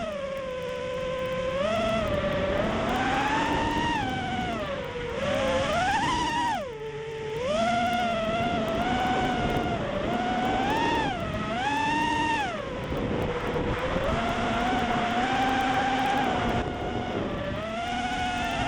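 FPV racing quadcopter's brushless motors and propellers whining. The pitch swings up and down again and again as the throttle changes, with a brief drop about seven seconds in.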